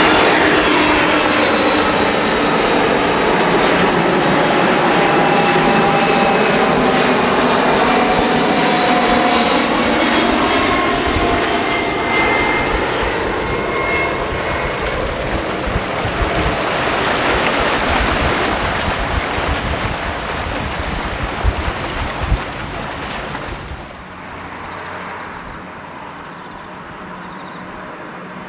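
Jet airliner engines passing close on landing, a loud whine whose pitch slides steadily downward as the aircraft goes by. A broader roar swells and fades a little past the middle. About twenty-four seconds in it drops abruptly to a quieter, steady engine hum with a thin high whine.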